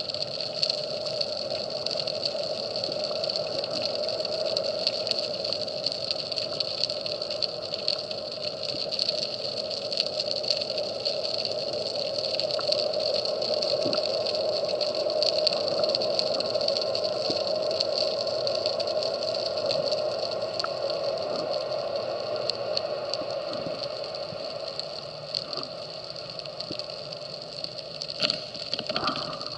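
Underwater ambience picked up by a camera below the surface: a steady droning hum with scattered faint clicks and crackles.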